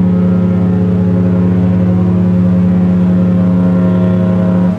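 A cruise ship's horn sounding one long, steady, deep blast that cuts off suddenly at the very end.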